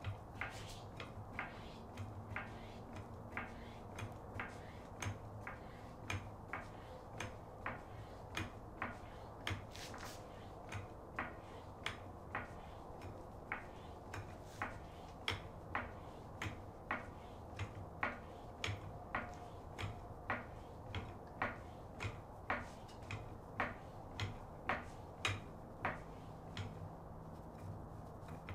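Daytona low-profile long-reach 3-ton floor jack (Harbor Freight DS300LR) being pumped by its handle to lift a car, a sharp click on each stroke at about one and a half strokes a second, over a steady low hum.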